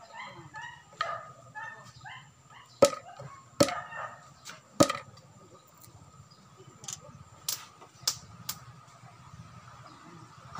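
Sharp wooden knocks of bamboo pieces and tools on a wooden stool top. Three loud knocks come about a second apart, followed by several fainter clicks. A dog yips a few times at the start.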